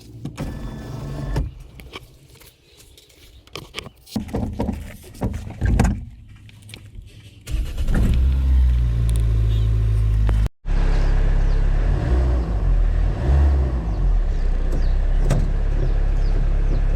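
Scattered knocks and clicks, then about seven seconds in a vehicle engine, likely the Mahindra Bolero's, starts a steady low running rumble that continues to the end, broken once by a brief dropout.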